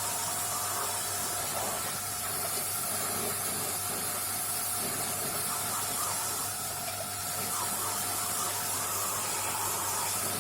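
Water running steadily in a hissing spray, rinsing dirt out of a disassembled submersible aquarium pump's parts, with a faint steady hum underneath.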